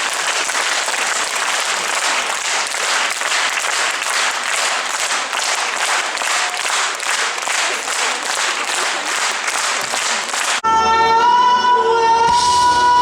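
Concert audience applauding, the clapping falling into an even beat. About ten seconds in the applause is cut off by instrumental music starting abruptly with sustained tones.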